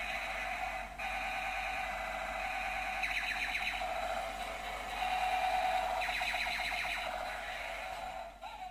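Electronic alarm tones from a homemade alarm clock's buzzer, sounding continuously. The tones shift in pitch and pattern every second or two, with rapid warbling chirps in places, and break off near the end.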